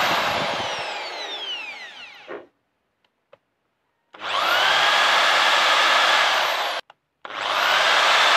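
Electric drill boring into the axle nut of a rear drum-brake hub: the motor winds down with a falling whine about two seconds in and stops, then runs again from about halfway, with a brief stop and restart near the end.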